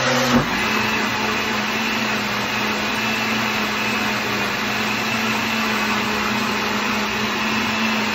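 Countertop blender running steadily as it purees wet paper pulp, its motor spinning up at the very start.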